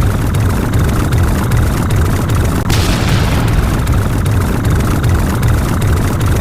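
A loud, continuous low rumble, with a sudden hissing burst that fades away about two and a half seconds in.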